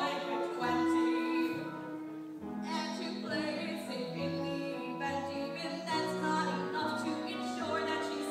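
Show-tune music from a live stage musical: instrumental accompaniment with held notes over a bass line that changes about once a second, with singing.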